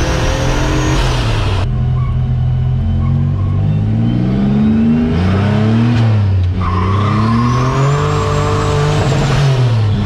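Turbocharged 3800 Series II V6 with a T70 turbo in a 1974 Ford Courier accelerating hard at wide-open throttle, its engine note climbing with the revs alongside a high rising turbo whistle. The whistle and the high end cut off sharply about two seconds in. From about five seconds the engine pulls up again, the whistle climbing and then falling away near the end.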